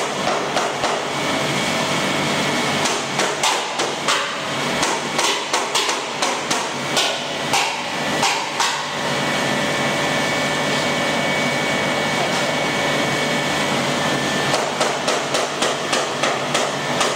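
Wheat straw pellet machine running with a steady mechanical hum and whine. Over it come clusters of sharp, irregular knocks, one from about three to nine seconds in and another near the end.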